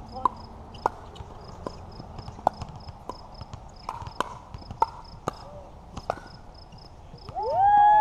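Pickleball paddles striking a plastic ball during a rally: a string of sharp hollow pops at uneven intervals, about a dozen in all. Near the end a loud voice calls out, louder than the hits.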